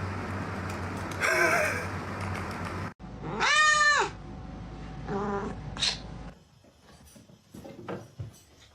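Cat meowing: one loud, long meow that rises and falls about three and a half seconds in, with shorter meows before and after it. A steady hum runs under the first few seconds.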